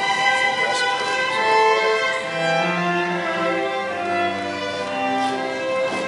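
Live bowed strings playing a melody of held violin notes over a lower bowed line.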